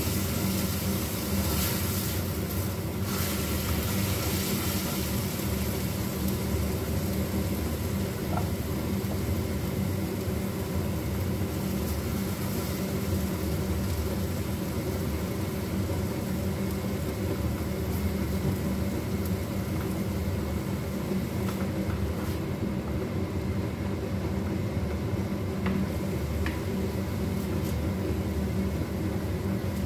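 Steady whir and low rumble of a kitchen range hood fan running over a lit gas stove, with a few faint ticks of a spatula stirring in a frying pan.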